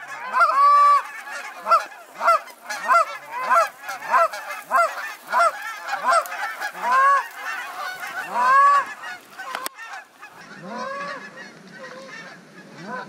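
A flock of Canada geese honking, loud overlapping calls coming about twice a second as the birds circle in to land on the water. About ten seconds in the honking turns much fainter.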